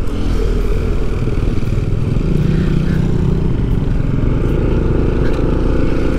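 Steady engine hum and road noise of a motor vehicle travelling along a road.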